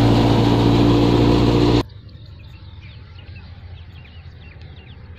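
Engine-driven farm machinery runs loud and steady, then cuts off abruptly a little under two seconds in. Quiet outdoor background with small birds chirping follows.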